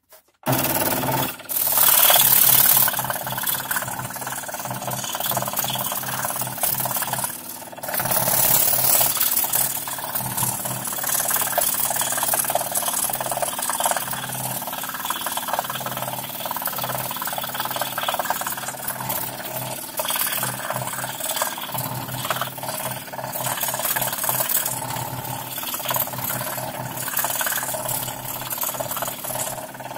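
Scroll saw running, its reciprocating blade cutting fretwork in thin plywood: a steady motor hum with the rasp of the blade, louder and hissier about two seconds in and again around eight to ten seconds.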